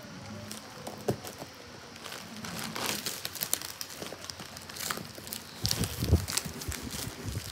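Plastic wrap and packing tape on a cardboard parcel crinkling irregularly as fingers pick and scratch at them to open it, with a few louder knocks of the box being handled about six seconds in.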